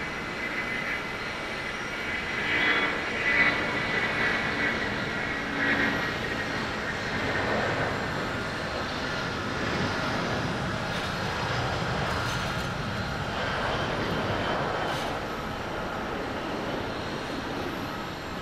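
Airbus A330-323 jet engines at takeoff thrust through the takeoff roll, lift-off and climb-out: a steady jet rush with a faint high whine early on, swelling louder a few seconds in.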